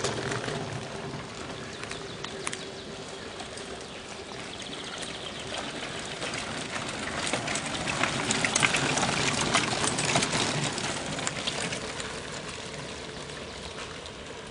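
Mountain bikes rattling over a cobbled track as a group of riders passes close. The clatter of tyres, frames and chains builds to its loudest around eight to ten seconds in, then fades.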